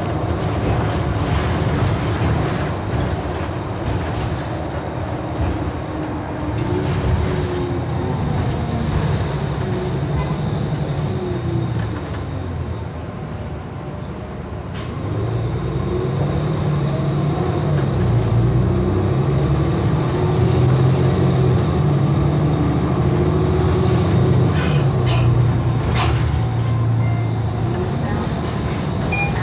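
Cummins diesel engine and drivetrain of a Nova Bus LFS city bus heard from inside the passenger cabin. It eases off and quietens a little, then pulls away with the engine pitch rising through the gears and a faint high whine that climbs and then falls off.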